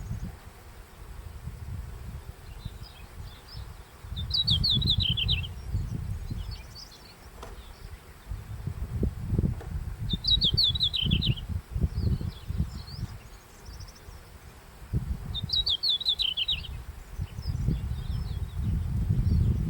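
Red-flanked bluetail singing three short phrases, about five seconds apart, each a quick run of high notes of about a second, heard as "kikkyo, kikkyo, kikyo, kyorori". Uneven low rumbling runs beneath, louder than the song at times.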